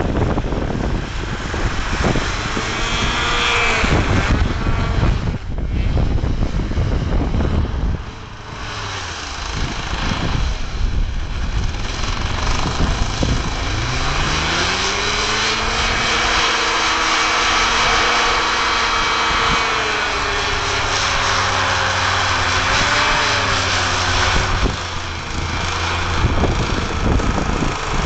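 Twin-engine Hoverstar hovercraft running on its lift engine and thrust propeller, with a loud rush of fan and propeller air. About halfway in the engine note climbs and holds at a steady higher pitch, wavers briefly, then eases off near the end.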